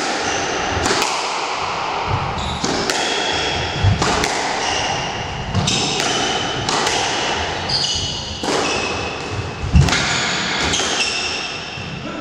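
Squash rally: the ball cracks off rackets and the court walls about once a second, with short high squeaks from shoes on the wooden floor.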